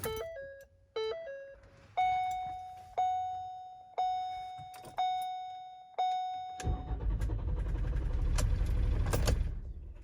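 2016 Ford Transit Connect dashboard chimes as the key is turned: a short falling chime twice, then five single dings about a second apart. Then the van's engine starts with a low rumble and runs for about three seconds before it is shut off.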